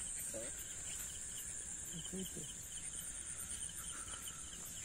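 Night insects such as crickets: a steady high trill, with a lower chirping that comes in short runs of quick pulses.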